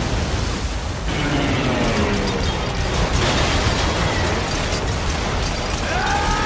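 Dense battle sound effects: continuous explosions and anti-aircraft gunfire over a heavy low rumble. Near the end a man cries out.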